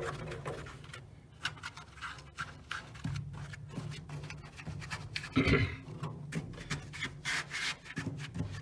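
Hands rubbing and pressing carpet onto the inside wall of a steel gun cabinet, smoothing it down onto spray adhesive: a run of soft brushing strokes, with one louder bump about five and a half seconds in.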